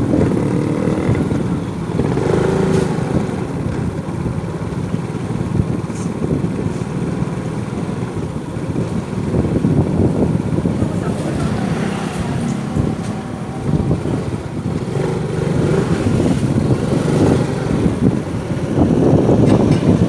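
Motorcycle engine running as it is ridden along city streets, its note changing with speed, over a steady low rumble of road and traffic noise.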